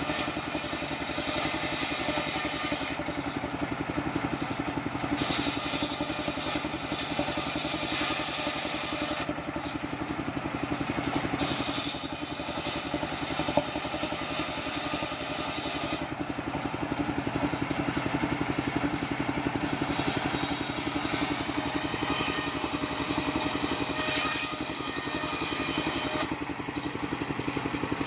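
Engine-driven mobile circular saw bench running steadily, its large blade ripping a waru log into thin battens. The engine's drone holds steady while the high cutting noise of the blade in the wood comes and goes as each pass is fed through.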